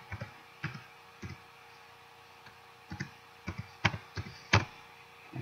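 Computer keyboard being typed on: irregular single key clicks in small runs, with a pause in the middle and one louder click near the end.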